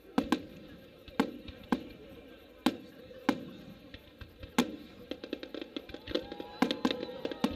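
Aerial firework shells bursting in a series of sharp bangs, roughly one every second, followed by a rapid run of crackling from crackle stars over the last couple of seconds. Music plays underneath.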